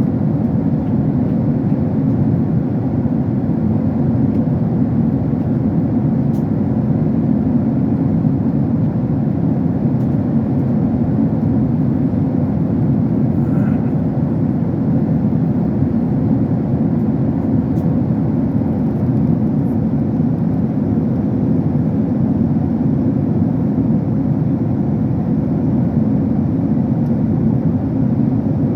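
Steady low cabin noise of an airliner in flight: engine and airflow noise heard from inside the passenger cabin, unchanging throughout.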